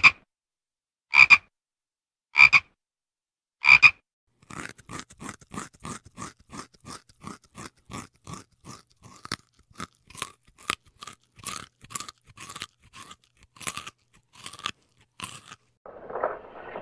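A toad gives four short, sharp calls about a second apart. Then a rabbit chews a carrot: a quick, even run of crisp crunches, about three a second. A low rushing noise starts near the end.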